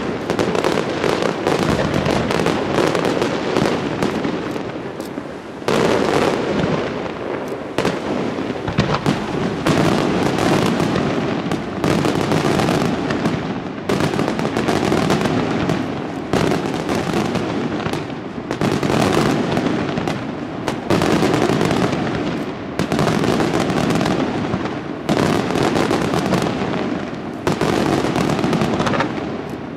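Fireworks display firing a dense, continuous barrage of rapid bangs, with a fresh volley setting in every few seconds.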